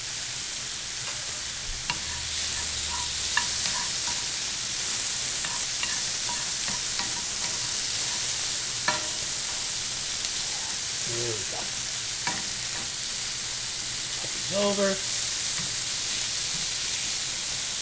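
Shrimp sizzling in a nonstick frying pan with garlic, scallion and lemongrass, a steady hiss. A wooden spatula stirring and turning them scrapes and taps against the pan now and then.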